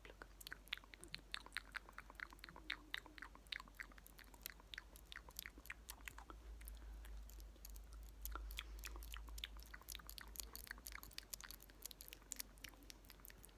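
Close-up ASMR mouth sounds: soft, irregular wet clicks and lip smacks, several a second, made right at the microphone.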